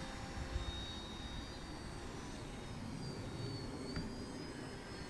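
E-flite Edge 540 QQ electric aerobatic RC plane in flight: the high, thin whine of its electric motor and propeller, sliding slowly down in pitch and rising again near the end.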